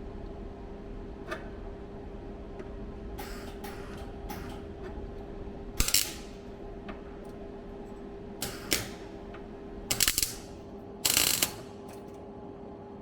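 Metalwork on a car floor repair panel being clamped and tack-welded in place: about six short, sharp metallic bursts, each under half a second, over a steady hum.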